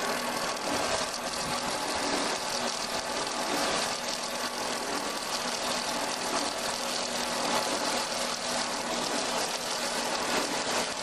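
Log-turning wood lathe running, its motor humming steadily while the cutter shaves the spinning log with a continuous hiss of cutting wood.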